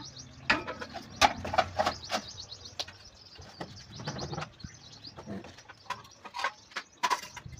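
Irregular clicks, taps and light knocks of household clutter being handled and sorted by hand.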